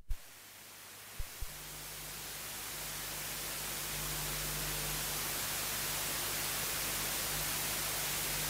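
Steady hiss of recording noise with a low electrical hum, swelling over the first few seconds and then holding steady. Two small clicks a little over a second in.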